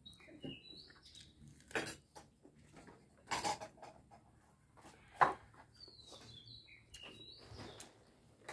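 Close eating sounds: a few short crunches and smacks as raw salad greens and food are chewed, the sharpest about five seconds in. Small birds chirp in brief high notes now and then behind it.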